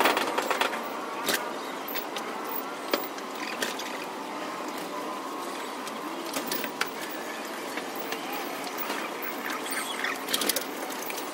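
Racing pigeons moving about and calling in their loft, with scattered taps and clicks over a steady hiss.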